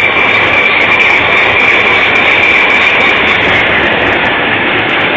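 Diesel-electric locomotive's diesel engine running loudly and steadily just after being started, with a steady high whine over a low pulsing rumble.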